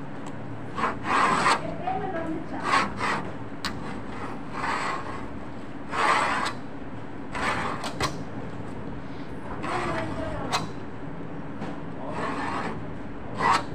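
Small hand knife cutting brown sheet material along a paper pattern on a cutting table, in short scraping strokes every second or two, over a steady hum.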